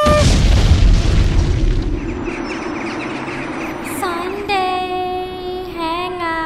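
Intro sound effects: a deep boom at the start that rumbles away over about two seconds. About four seconds in, a held musical tone with a slight waver in pitch sets in, like a sung 'aah'.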